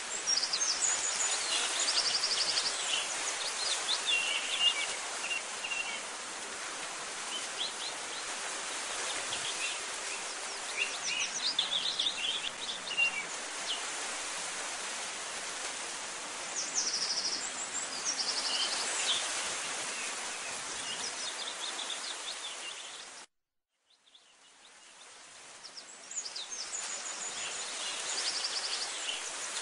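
Birds chirping and trilling over a steady outdoor hiss. The sound cuts out suddenly about 23 seconds in and fades back up a second or two later.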